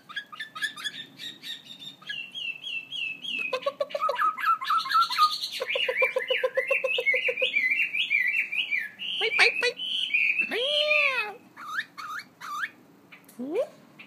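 Caged laughingthrush singing a loud, varied song: runs of repeated whistled notes, rapid trills and swooping up-and-down phrases, thinning to short separate calls near the end.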